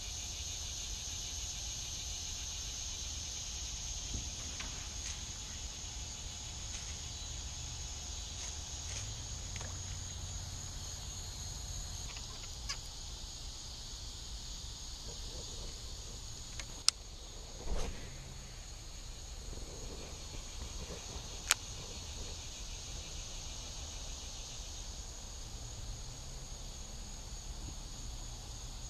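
Steady chorus of insects, an even high-pitched buzz that holds throughout, over a low rumble. Two brief sharp clicks sound in the second half.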